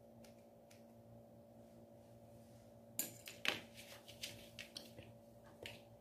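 Faint snips of scissors trimming a small dog's face fur over a steady low hum, then from about three seconds in a run of sharper clicks and knocks, loudest twice in quick succession, as the dog moves about on the hard floor and is handled.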